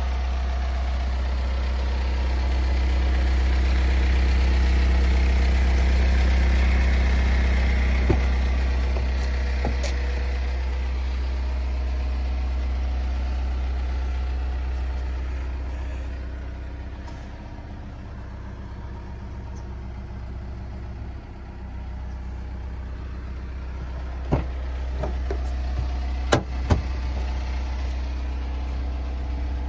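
Mitsubishi L200 pickup's diesel engine idling steadily. A few short knocks can be heard, two of them close together near the end.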